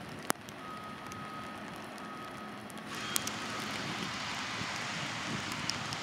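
Diesel switcher locomotive idling, heard as a steady outdoor hiss, with an intermittent high electronic beep in the first half and a sharp knock just after the start. The hiss steps up louder about halfway through.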